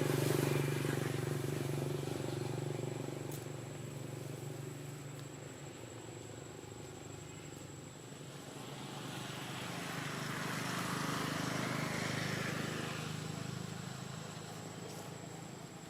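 Motor vehicles passing: a low engine hum fades away over the first few seconds, then a second vehicle swells up and fades again around the middle.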